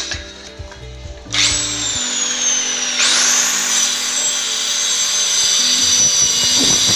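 Handheld electric circular cutter running and sawing through a board along a straightedge. Its whine starts about a second in, grows louder and higher about three seconds in, then holds steady and stops at the very end.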